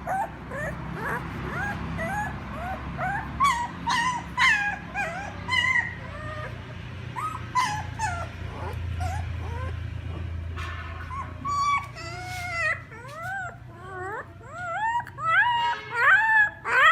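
Puppy whimpering and crying: a long run of short, high-pitched whines and yips, each rising and falling in pitch, coming thick and fast near the end.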